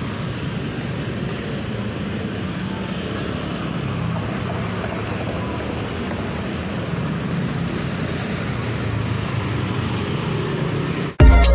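Street traffic: motorcycle and car engines running and passing steadily, with the sound sitting mostly low. Right at the end it cuts abruptly to loud intro music.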